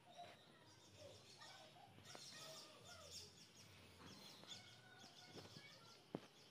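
Near silence: faint outdoor ambience with birds chirping in the distance.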